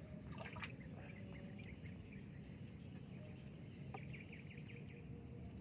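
Faint outdoor background: a steady low rumble of wind or moving water, with bursts of quick high bird chirps at intervals and a couple of soft clicks.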